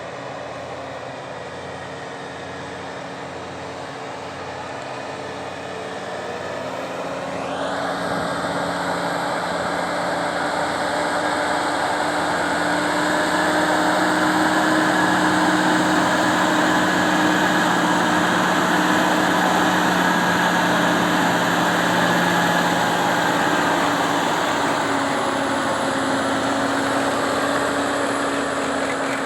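Heavy diesel engine running steadily, building louder about seven seconds in and holding there, then easing slightly near the end.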